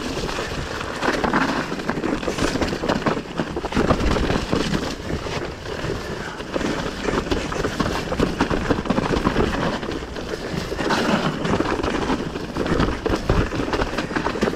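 Mountain bike ridden down a wet, muddy trail: a constant rush of wind on the microphone with continual rattling and knocks from the bike over rough ground.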